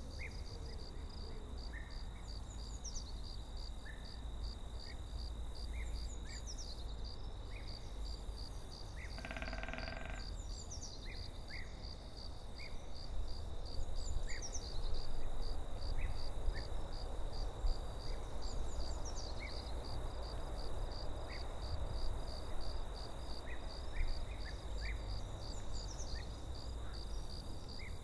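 Forest ambience: an insect trilling steadily with a rapid even pulse, high bird chirps every couple of seconds, and a low rumble underneath. A short pitched call sounds once, about ten seconds in.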